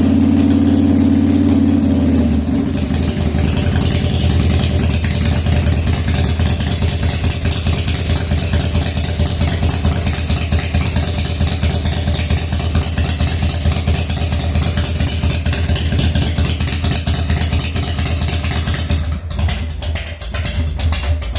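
1997 Harley-Davidson FXDWG's Evolution V-twin running cold on its first start after an S&S carburetor repair. About two seconds in its speed drops and it settles into a pulsing, rough idle. Near the end a few sharper, uneven beats break in, typical of an engine that is not yet idling well.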